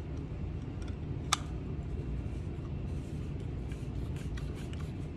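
A one-way valve being screwed onto a VO2 mask's center valve: faint clicks and handling noise of the valve parts, with one sharper click about a second in, over a steady low room hum.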